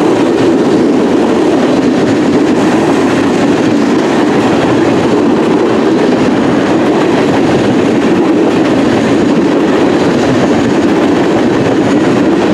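Freight train cars rolling past with a steady, loud rumble of wheels on rails.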